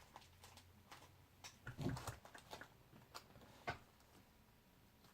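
Faint handling noise of craft supplies being searched through: small clicks and rustles, with a louder knock about two seconds in and a sharp click a little later.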